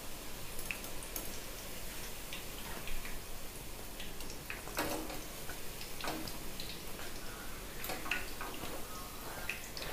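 Metal slotted ladle (jhara) clicking and tapping against the kadhai as fried boondi is lifted out of hot ghee: scattered light, irregular clicks, a few with a short metallic ring, over a faint steady hiss.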